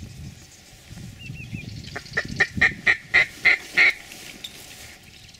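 A quick run of about eight loud mallard-style quacks, about four a second, starting about two seconds in and lasting about two seconds.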